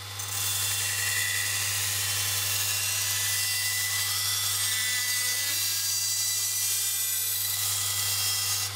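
Robert Sorby ProEdge belt sharpener running with a knife blade ground along its 600-grit Trizact belt: a steady motor hum under a loud, even grinding hiss. The hiss drops near the end.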